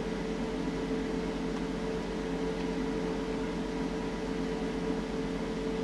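Steady room hum: a constant drone with a light hiss behind it, unchanging throughout.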